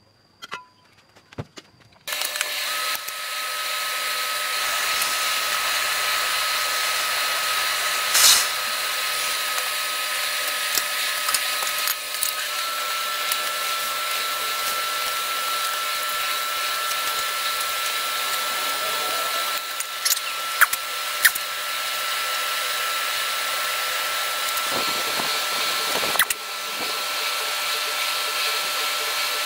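Small electric air blower starting about two seconds in and then running steadily, a rush of air with a steady whine, feeding air through a pipe into a charcoal forge; a few sharp clicks sound over it.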